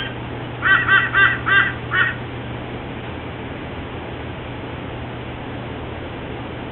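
White-bellied sea eagle calling: a quick run of about six short calls in the first two seconds, after which only a steady background hiss remains.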